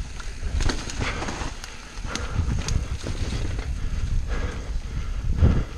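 Mountain bike descending a rough dirt trail at speed: tyres rumbling over the dirt and the bike rattling and knocking over bumps, with a heavy jolt near the end.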